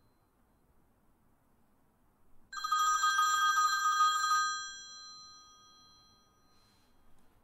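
Telephone ringing sound effect at the close of a hip-hop track. Near silence for about two and a half seconds, then one ring of about two seconds that fades away.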